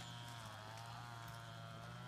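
A motor's steady drone, its pitch wavering slightly up and down.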